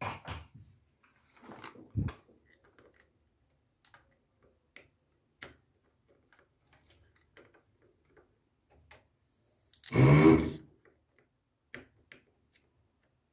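Sparse, faint clicks and taps of hand tools on a circuit board as components are desoldered and pulled out, with a small thump about two seconds in and a short, louder sound about ten seconds in.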